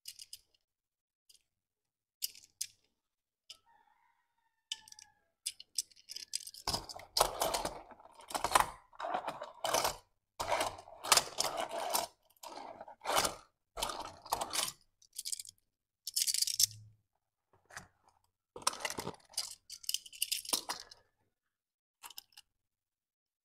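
Hands handling a die-cast Tomica toy car and its cardboard packaging: an irregular run of clicks, scrapes and crinkles, sparse at first and busiest in the middle.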